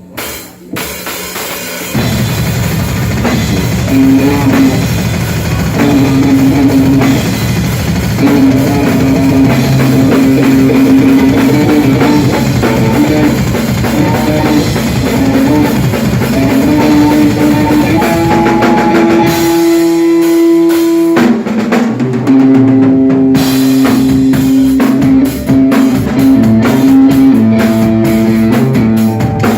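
Rock band playing live: drum kit, electric guitar and bass. After a quieter opening the full band comes in about two seconds in, breaks off for about two seconds near the two-thirds mark with only a single held note ringing, then comes back in.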